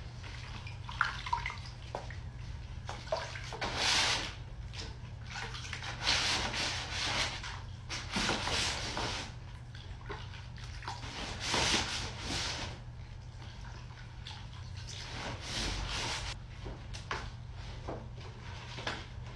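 Gloved hands mixing and scooping wet plaster in a plastic bucket: irregular wet sloshing and splashing in short bursts every second or two.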